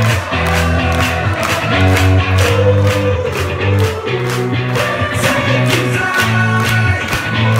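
Loud live electronic pop performance: a steady drum beat and held bass notes with a singer's voice on top.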